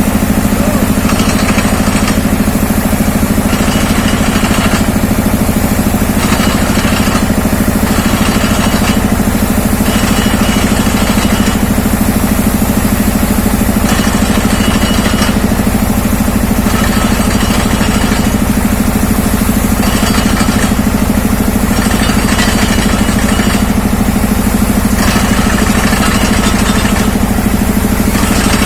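Engine of a well-drilling rig running steadily, with a higher hiss that comes and goes every second or two.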